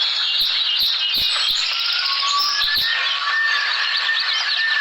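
Oriole song: dense high chirping and warbling, joined about two seconds in by a long whistled note.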